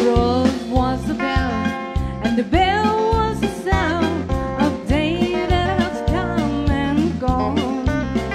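Live country band playing: a fiddle lead with wavering, bending notes over a steady bass and drum beat.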